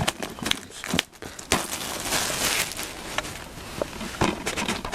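DVD box-set packaging being opened and handled: crinkling plastic with scattered clicks and taps, and a longer rustle from about one and a half to three seconds in.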